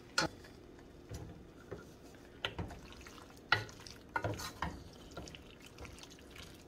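Wooden spoon stirring fettuccine in a thick, creamy Alfredo sauce in a stainless steel pot, with a few short clicks as the spoon knocks against the pot.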